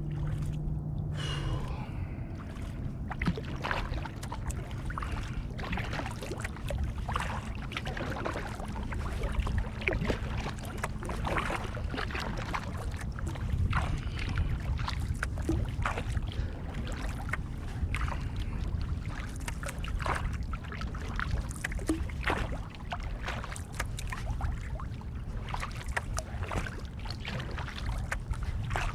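Kayak paddle strokes in calm lake water: the blades dipping and splashing about every second or two, with drips between strokes, over a steady low rumble.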